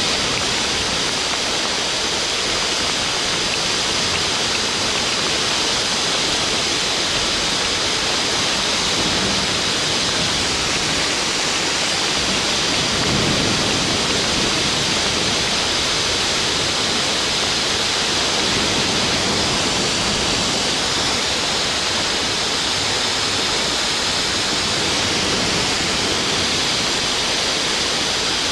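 A steady, loud, even hiss with no breaks, heavier in the high range than in the low.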